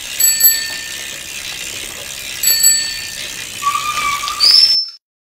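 A bicycle bell rings twice in quick succession, then rings twice again about two seconds later, over a steady hiss. Near the end come a couple of short whistle-like tones, one of them rising, and the sound then cuts off abruptly.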